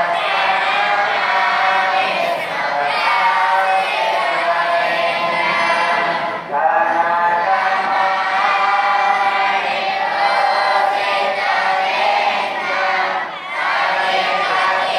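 A large group of boys chanting in unison, voices together in long held phrases, with short breaks for breath about six and a half and thirteen and a half seconds in.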